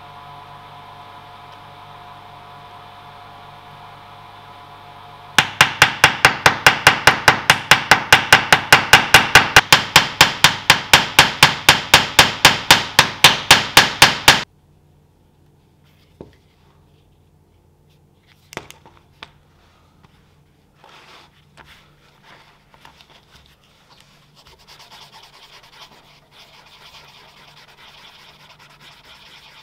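Hammer striking rapidly and evenly, peening over the pins that hold the steel end cap on an Estwing axe's stacked leather handle; the strikes start about five seconds in after a steady faint hum and stop abruptly near the middle. After a few clicks comes quiet, irregular rubbing on the leather sheath.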